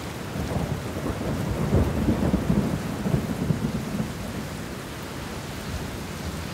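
Recorded rain with a low rumble of thunder, strongest about two to three seconds in, settling into a steady rain hiss.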